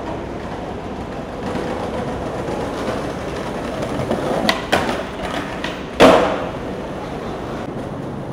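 City street noise: a steady traffic rumble, with a couple of sharp clacks about four and a half seconds in and a single louder bang about six seconds in.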